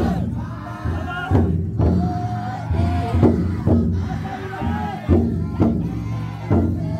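Large taiko drum inside a futon daiko festival float beaten in repeated heavy strokes, with a crowd of carriers chanting in unison over it.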